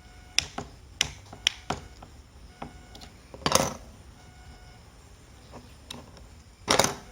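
Sharp clicks and scrapes from the plastic parts of an MC4 solar connector being handled and tightened: four quick clicks in the first two seconds, then two short rasps, one about halfway and one near the end.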